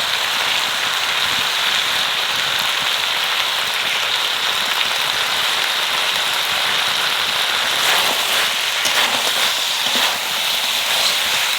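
Country chicken and onions sizzling steadily in hot oil in a pan, with a few sharp clicks about eight seconds in and again near the end.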